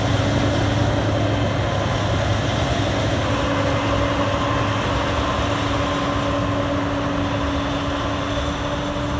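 A large grain-drying fan running steadily: an even mechanical drone with a low hum and a steady mid-pitched tone over rushing air.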